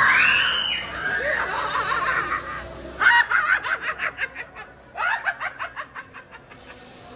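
A loud cry right at the start, then two runs of cackling laughter, about three and five seconds in, each a quick string of 'ha's that fades out.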